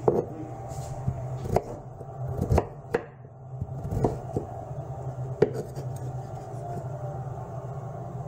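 Kitchen knife cutting raw potatoes on a cutting board: about six sharp, irregular knocks of the blade on the board, a second or so apart, over a steady low hum.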